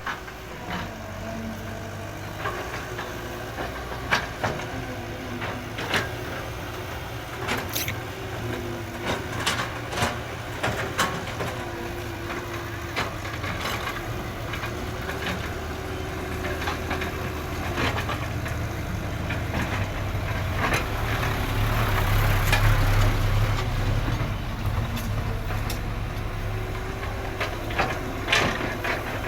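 Excavator's engine running steadily, with scattered sharp knocks throughout and the engine growing louder for a few seconds just past the middle.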